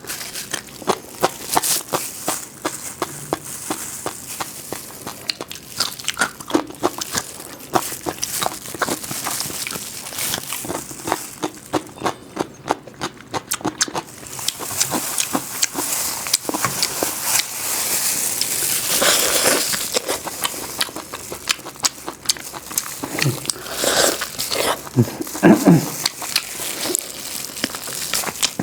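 Close-miked eating sounds: a dense run of crackles, clicks and crunches as food is handled, bitten and chewed, with a longer stretch of rustling a little past the middle.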